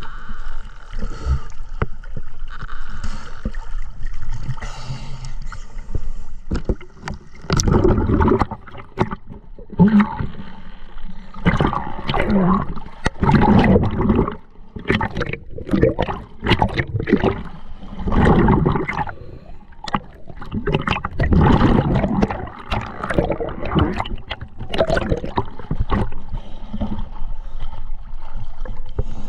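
Water gurgling and bubbling close to the microphone in loud, irregular bursts every few seconds, with small clicks and knocks between them.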